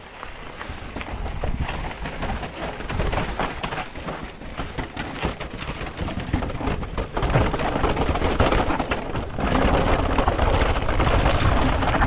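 Mountain bike descending a rocky stair set and stony trail: tyres and frame rattling and clattering over steps and loose rock, with wind buffeting the microphone. The rattle grows louder past the middle as the descent gets rougher.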